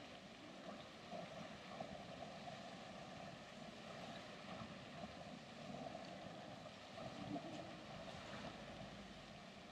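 Faint, steady outdoor background noise with a low hum and a few soft ticks; no single source stands out.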